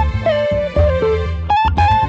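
Background music: a plucked guitar melody stepping down through notes over a steady bass line.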